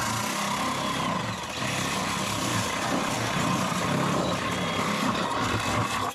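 A motor running steadily at a constant pitch, starting abruptly and cutting off abruptly after about six and a half seconds.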